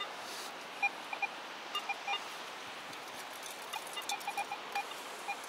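Garrett AT Pro metal detector giving short, irregular beeps at a couple of different pitches as a scoop of sand is passed over its coil, responding to a small piece of foil. A steady hiss runs underneath.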